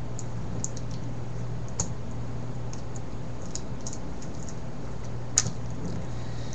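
Light clicks and taps of plastic Rubik's 4x4 cube pieces being handled, scattered and irregular, with two sharper clicks, over a steady low hum.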